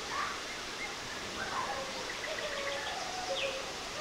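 Wild birds singing: many short chirps and whistled glides, one after another, over a steady background hiss.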